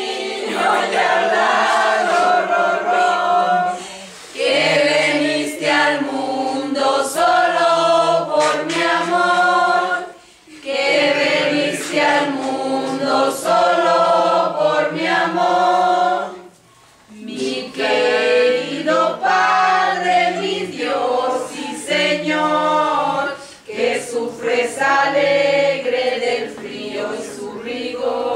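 A group of men and women singing a song together without instruments, in sung phrases broken by a short pause about every six to seven seconds.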